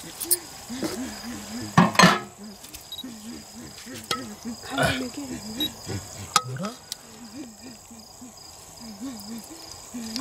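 Crickets chirping steadily, with metal spoons and a ladle clinking and scraping against steel plates and a steel bowl; the loudest clatter comes about two seconds in.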